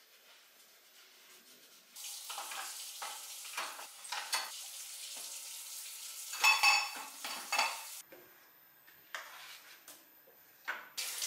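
Food sizzling in a pan while being stirred, with a metal utensil scraping and clinking against the pan. It starts about two seconds in, has a burst of ringing clatter about six and a half seconds in, and dies down to a few clicks afterwards.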